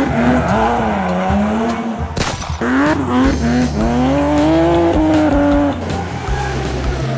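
Racing-car engine sound effects revving up and down in pitch, with squealing tyres, and a sharp click a little after two seconds in.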